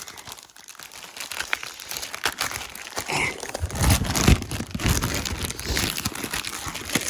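Paper and plastic packaging crinkling and rustling as a folded train-set mat is pulled out of its box. It grows louder a little past halfway, with a few dull knocks.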